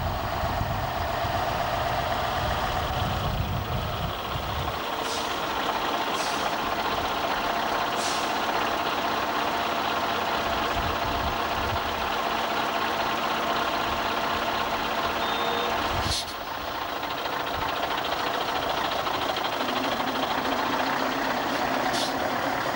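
Scania lorry's diesel engine running steadily at idle close by, with a few sharp clicks scattered through.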